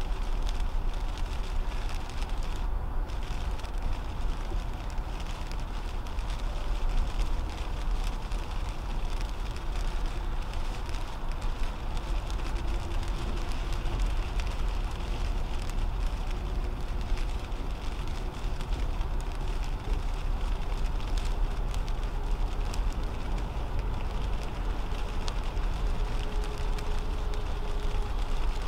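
Steady road noise heard inside a 2010 Toyota Camry V6 at highway speed on wet pavement: a low rumble and tyre hiss, with rain spattering on the windshield.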